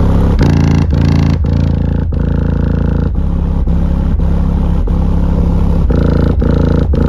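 Two Skar DDX 10-inch subwoofers in a ported box playing loud, deep bass, pulsing about twice a second. They are driven hard by a Taramps Smart 3K bass amp, hard enough that the voice coils can be smelled heating.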